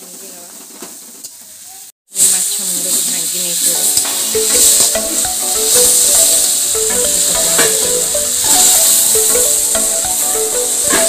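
Fish heads and chopped vegetables sizzling in hot oil in an iron kadhai, stirred and scraped with a spatula. After a brief break about two seconds in, the sizzle is louder, with background music under it.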